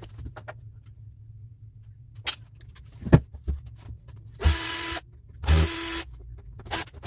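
A cordless electric screwdriver runs in two short bursts of about half a second each, a steady whirr, as it tries to back out tight Phillips screws from the end cap of a small DC gear motor. Before that come a few handling knocks as the motor is picked up.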